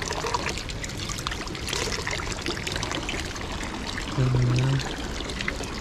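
Water running and splashing steadily from a public drinking fountain. About four seconds in, a short hum of a human voice.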